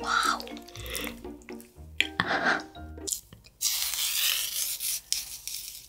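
Wet squelching and tearing of sauce-soaked napa cabbage kimchi pulled apart by hand. It is loudest in one long wet stretch past the middle, over light background music.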